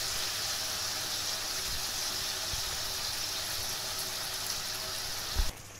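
Watery bean-and-potato curry simmering in a steel karai over a gas flame, a steady bubbling hiss as the gravy reduces. It cuts off abruptly near the end, just after a low thump.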